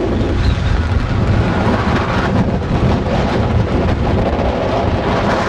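Strong wind buffeting the microphone: a loud, steady, rumbling roar of wind noise.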